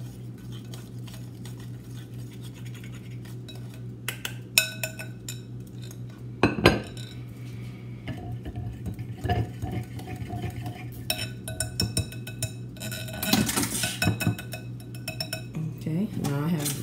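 Metal whisk clinking and scraping against a glass mixing bowl as batter is whisked. There are scattered sharp clinks that ring briefly, with a busier stretch of knocking a few seconds before the end. A steady low hum runs underneath.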